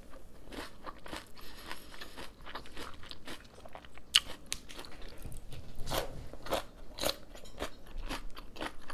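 A person chewing and crunching food close to the microphone, mukbang-style: irregular crisp crunches and wet clicks, including bites of raw cucumber from about four seconds in.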